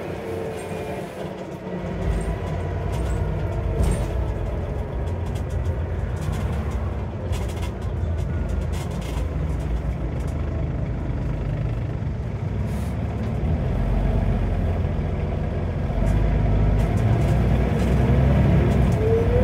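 Scania DC9 9.0-litre five-cylinder diesel of a Scania N94UB bus, heard from inside the cabin, pulling under load through its ZF Ecomat five-speed automatic gearbox. The engine grows louder about two-thirds of the way through, and a rising whine from the gearbox comes in near the end.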